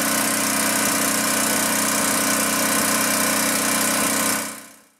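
Single-cylinder Honda-clone four-stroke overhead-valve generator engine running at a steady speed, on a new head gasket and freshly adjusted valves. The sound fades out near the end.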